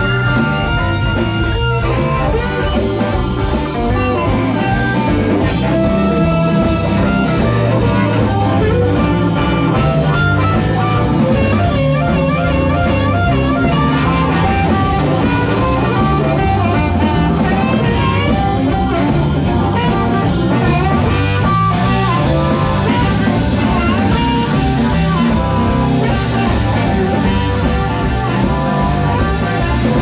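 Live blues band playing a song with electric guitar and drum kit keeping a steady beat, and a blues harmonica playing bending lead lines over it.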